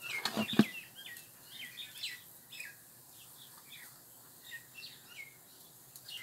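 Small birds chirping in repeated short, high calls, with a few sharp knocks about half a second in that are the loudest sounds.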